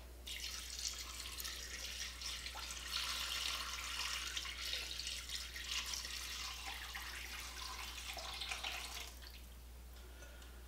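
Chicken broth poured from a glass measuring pitcher into a slow cooker full of chopped vegetables, splashing steadily and stopping about nine seconds in.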